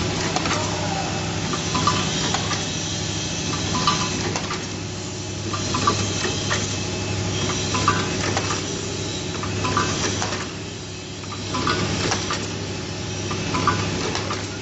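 Pneumatic rotary-table pencil sharpener assembly machine cycling: a steady hum under short clacks of cylinders and table stations about every two seconds, with hisses of air.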